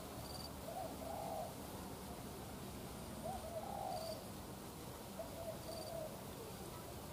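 Spotted doves (tekukur) cooing: three short, soft cooing phrases a couple of seconds apart.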